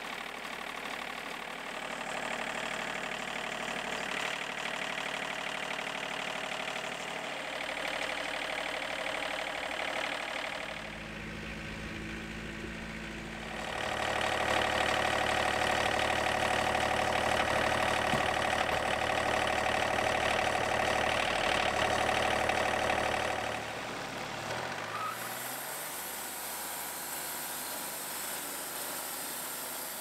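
Wood-Mizer LT50 portable band sawmill running: its engine runs steadily, with a louder stretch in the middle while the hydraulic log loader lifts a log. The sound changes in steps, and a short rising whine comes toward the end.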